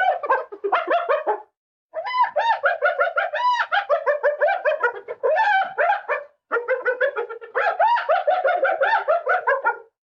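Hyena giggling: rapid runs of short, high, rising-and-falling whoops, several a second, in three bouts broken by brief pauses about one and a half seconds and six seconds in.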